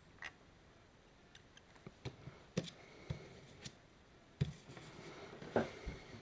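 Small plastic kit parts handled and fitted together by hand: a run of irregular sharp clicks and taps, the loudest about halfway through and near the end.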